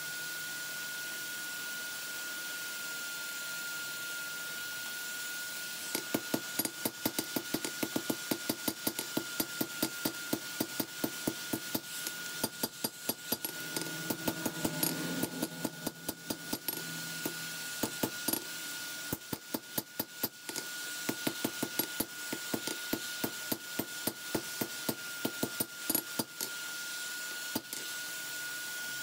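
Blacksmith's hand hammer forging steel from a lawnmower blade on an anvil. Runs of quick blows, about three a second, start about six seconds in and are broken by short pauses.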